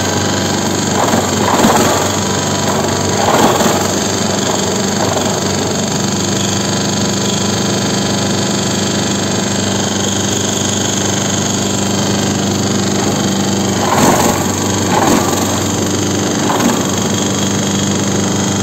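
Organic vegetable waste shredder running steadily with a constant machine hum and grinding noise, rising in brief louder surges twice in the first few seconds and three times later on.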